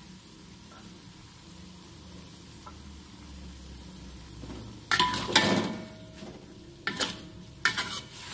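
Faint steady sizzle of a simmering pan, then, about five seconds in, a metal spatula starts clanking and scraping against a metal wok, several strikes ringing briefly, as shredded chicken and basil are stirred.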